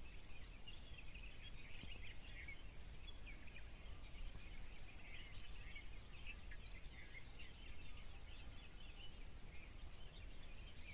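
Faint outdoor ambience: many small birds chirping and calling in the background, over a low steady rumble.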